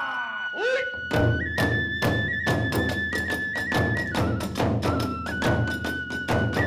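Hiroshima kagura hayashi: a bamboo flute holding high notes and stepping between them over fast, even drum beats and hand-cymbal clashes, which come in about a second in after a short rising slide.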